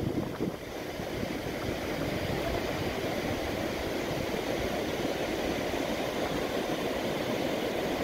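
Ocean surf washing up a flat sandy beach: a steady rushing noise.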